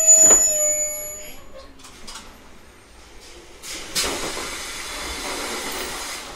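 JR East 719-series electric train at a stop: a clunk with a brief high squeal at the start, then after a lull a hiss of compressed air lasting about two and a half seconds.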